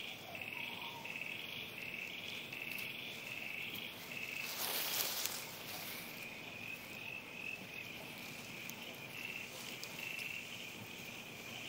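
Crickets chirping steadily at night, a high, even run of short repeated chirps, with a brief rustle about halfway through.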